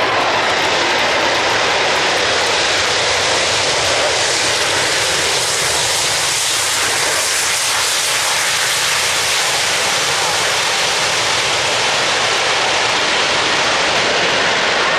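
Loud, steady roar of aircraft engines: an Airbus A380's jet engines as it lands and rolls out, together with an Airbus A400M's four turboprops flying its display.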